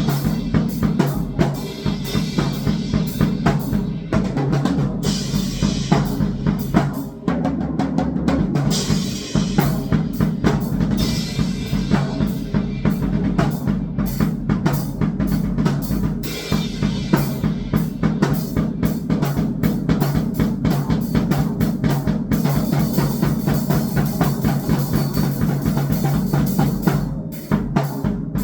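Drum-kit drumming: a fast, dense, unbroken run of bass-drum and snare-like strokes, with brief dips in level about seven seconds in and again near the end.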